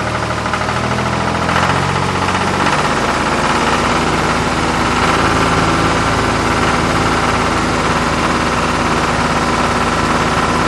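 Tractor engine sound effect running steadily with a knocking idle, laid over a plastic toy tractor.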